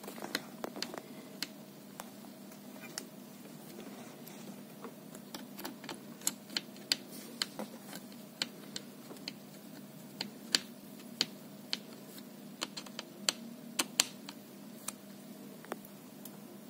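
Irregular small sharp clicks and taps from hands working inside an opened Dell Precision 5520 laptop chassis, a few per second at most, over a steady low hum.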